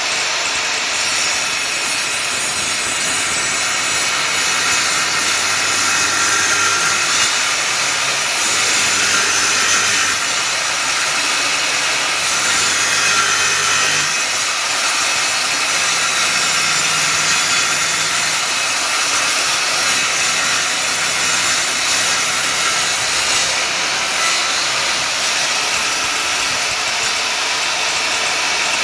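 A woodworking power tool running steadily, a loud, even noise with no break.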